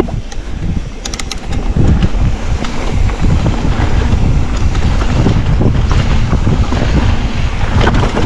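Mountain bike riding down a trail: wind buffets the action-camera microphone over the rumble of the tyres on the ground. A few sharp rattles come about a second in and again near the end.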